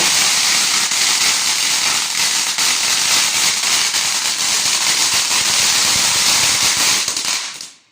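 Firework crackling densely and without a break, a rapid stream of tiny pops, cutting off about seven seconds in.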